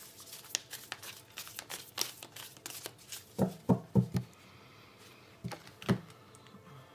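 Tarot cards being shuffled by hand, a quick patter of small card flicks, then four low knocks about three and a half seconds in as the deck is squared against the cloth-covered table, and one more knock near the end as a card is laid down.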